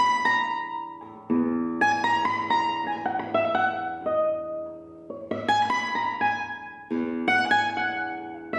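Lazarides blanca flamenco guitar, a cypress-bodied flamenco guitar, played solo: several full chords struck, each followed by quick picked notes that ring out and die away.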